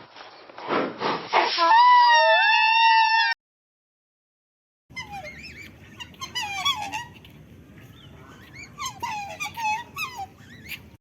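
A rhinoceros giving a loud, pitched squealing call that slides up and down, cut off sharply about three seconds in. After a short silence, swans call with many short, repeated honks over a steady background hiss.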